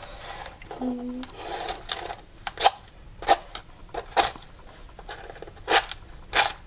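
A match struck repeatedly against the striker of a Redbird matchbox: about seven short, sharp scratches, several of them close together, without the match catching.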